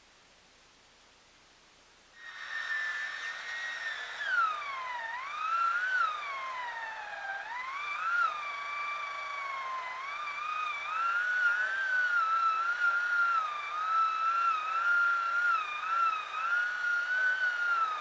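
Chainsaw starting up about two seconds in after near silence, then running with its pitch sagging and recovering as the load on the chain changes while it cuts.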